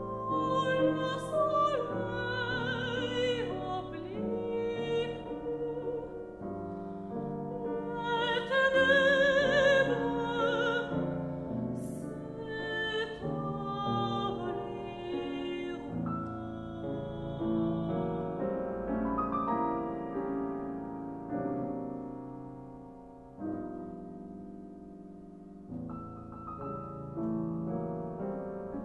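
Soprano singing a French art song with vibrato over a Steinway grand piano accompaniment. Her voice is loudest in a high phrase about eight to ten seconds in and stops about halfway through, leaving the piano playing alone, briefly softer before it picks up again near the end.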